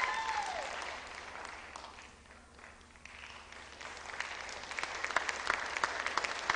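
Audience applauding, with a brief falling whoop from the crowd at the start. The clapping dies down almost to nothing about halfway through, then picks up again with scattered, distinct claps.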